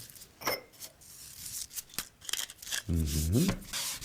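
Kitchen cooking sounds during the seasoning and searing of a steak: sharp clicks and knocks of utensils, with a hissing sizzle in the middle. Near the end a man gives a short low 'mm' that rises and falls.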